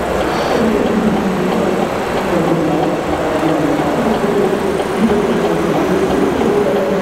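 Radio-controlled scale model construction machines running, led by a 1/14-scale Liebherr 956 hydraulic excavator digging: a steady mechanical running noise with a wavering motor and pump whine.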